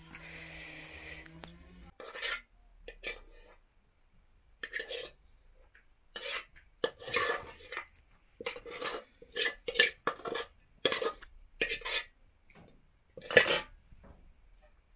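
Dishes and utensils clattering and scraping as food is dished out into plastic bowls and a metal pot: a string of short knocks and clinks, the loudest near the end.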